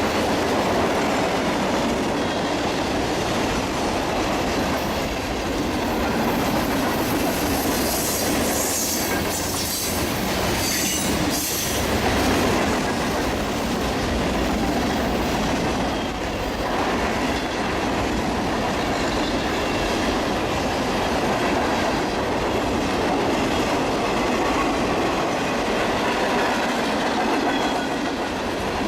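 Freight cars of a CSX mixed freight train rolling past, a steady rumble of steel wheels on rail. A high-pitched wheel squeal joins in from about eight to twelve seconds in.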